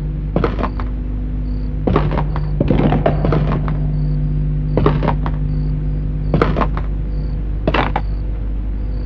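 A steady low electrical hum, with about six short knocks or thumps spaced a second or two apart.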